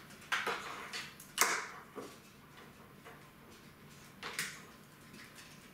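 PC power-supply cables being handled and pulled through the back of a steel computer case: a few short rustles and knocks against the case, the loudest about a second and a half in and another just past four seconds.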